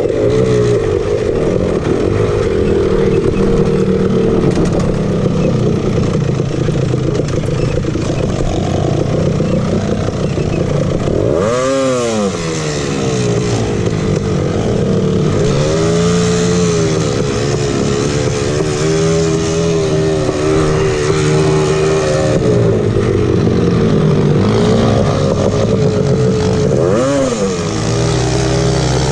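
Honda TRX250R's two-stroke single-cylinder engine running as the ATV is ridden, the revs dipping and climbing back several times, sharply about twelve seconds in and again near the end.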